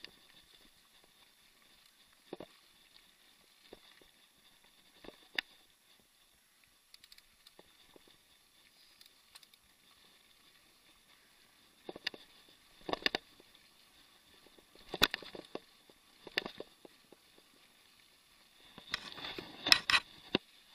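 Mountain bike rattling over bumps on a dirt trail: sharp knocks and clicks a few seconds apart, with a quick cluster of louder knocks near the end, over a faint steady hiss.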